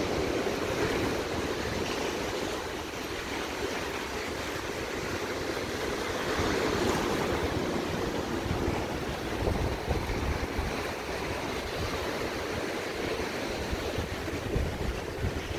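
Ocean surf washing ashore in a steady wash, with wind rumbling unevenly on the phone's microphone.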